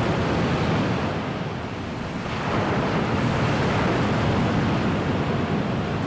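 Big ocean surf breaking: a continuous heavy rush of crashing waves, with a fresh surge about two seconds in.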